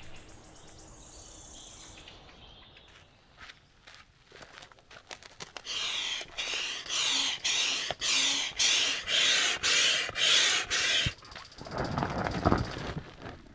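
Hand air pump inflating a rubber boat: a run of about ten even whooshing strokes, roughly two a second. Near the end comes a rough scraping as the rubber boat is pushed over gravelly ground.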